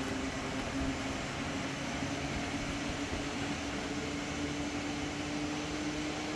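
Manx Electric Railway tram set with trailer 62 running along the narrow-gauge track: a steady running noise with a steady low hum that rises slightly in pitch toward the end.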